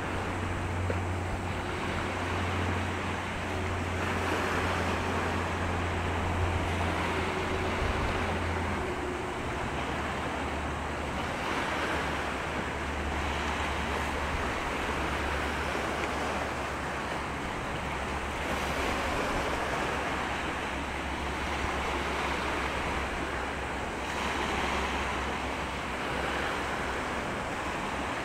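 Low steady drone of a passing container ship's slow-speed diesel, under a rushing wash of water and wind that swells and eases every few seconds. The drone drops slightly in pitch about nine seconds in.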